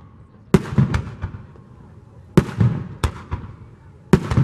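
Aerial firework shells bursting overhead. There are three sharp booms about two seconds apart, each followed quickly by two or three smaller bangs.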